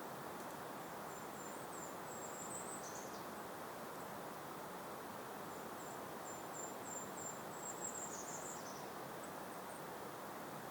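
A songbird singing twice, each song a run of very high, thin notes ending in a short, lower, buzzy flourish, over a steady breeze.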